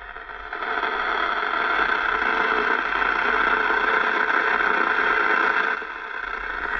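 Two-way CB radio giving off a steady static hiss through its newly connected extension speaker, easing slightly near the end.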